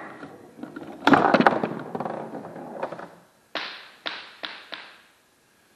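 A hard plastic foosball knocks against a foosball table: a sharp knock about a second in and about two seconds of rattling, then four lighter knocks, each coming sooner than the last.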